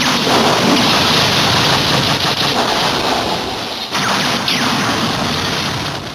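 Finisher-attack sound effect: a loud, dense crashing rush, struck anew by a sudden hit about four seconds in, then fading out near the end.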